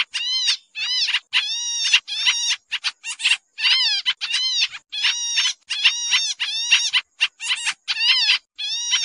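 Pied triller (kapasan kemiri) giving a fast, busy run of harsh, nasal calls, about two to three notes a second, each note arching up and down in pitch, with only short breaks between them.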